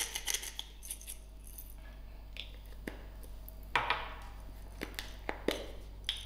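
Small handheld salt grinder twisted over a bowl of flour, a quick run of dry clicks at the start. Then scattered light clicks and a knock about four seconds in as the grinders are handled on the counter.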